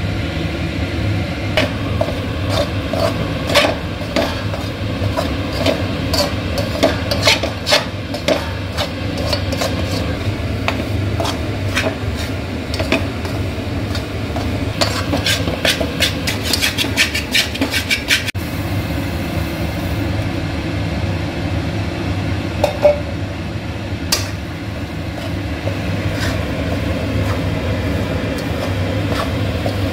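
Metal spatula scraping and clinking against a stainless-steel kadai while a dry, crumbly panjiri flour mixture is stirred, then coriander seeds. The strokes come thick and fast at first and grow sparse about two-thirds through, over a steady low hum.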